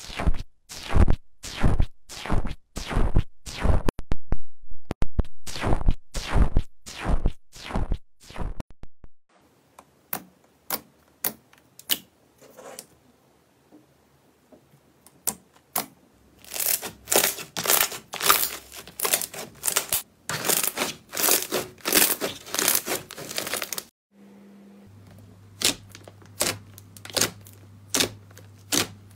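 Slime being poked and squeezed by hand, making sharp pops and crackles. For the first nine seconds a bubbly, foamy slime pops loudly as it is poked. Then a clear slime gives scattered clicks that turn into dense crackling, and near the end a soft blue slime gives quieter pops under the fingers over a low hum.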